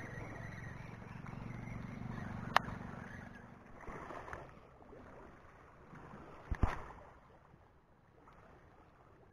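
Small waves washing and lapping against a rocky seawall, with a low rumble that fades after about three and a half seconds. There is one sharp click about two and a half seconds in and a knock about six and a half seconds in.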